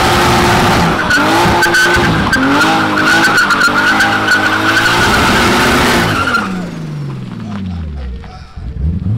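Turbocharged BMW E30 Touring's M20B25 straight-six held at high revs in a burnout, the rear tyres squealing steadily as the revs rise and fall. After about six seconds the squeal stops and the engine revs fall away, with a brief rise again near the end.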